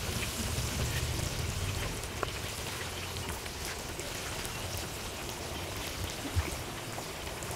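Marinated quail pieces frying in deep oil in an iron kadai: a steady hiss with fine crackling as more pieces go in, and one short dull thump about six seconds in.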